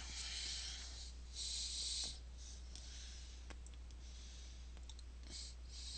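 Faint breathing into a headset microphone: several short hissing breaths, with a few light clicks between them over a steady low hum.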